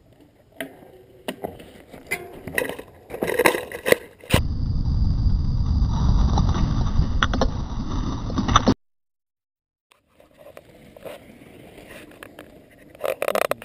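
Mountain bike descending a dirt trail: a loud rush of wind on the microphone and tyre rumble for about four seconds, cut off abruptly. Before it, scattered knocks and rustling; after a short silent gap, faint handling noise with a few knocks near the end.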